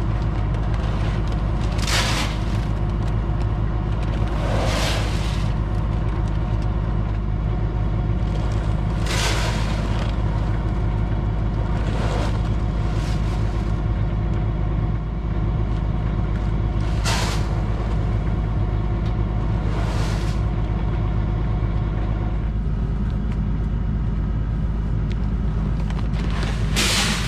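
Case IH 7120 tractor's six-cylinder diesel running steadily under way, a constant low drone. Short rushing bursts of noise break in every few seconds, about seven times.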